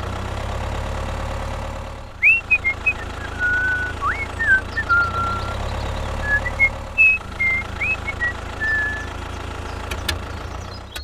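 A tractor engine sound running steadily at idle, with a person whistling a short tune of held and upward-sliding notes over it from about two seconds in until about nine seconds.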